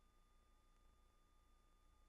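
Near silence: a faint, steady hum with a thin high tone and light hiss, and no other sound.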